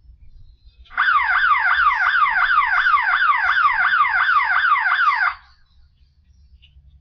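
YoLink outdoor security siren sounding its alarm: a loud, rapidly sweeping electronic wail at about four sweeps a second. It starts about a second in and cuts off suddenly some four seconds later.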